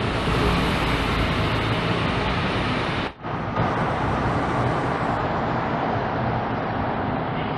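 City buses driving past at close range, a steady rumble of engines and tyres. The sound drops out briefly about three seconds in, then the next bus's passing runs on.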